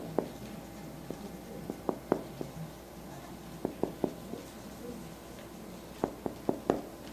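Short sharp clicks and taps close to the microphone, coming in small clusters of two to four, over a faint steady low hum.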